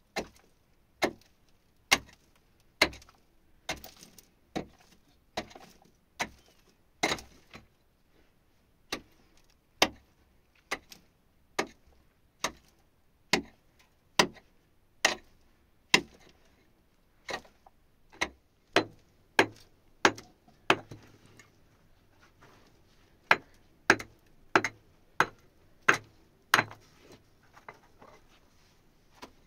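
Pickaxe striking hard, stony earth over and over while a cave is being dug out, about one blow a second, with a couple of short pauses.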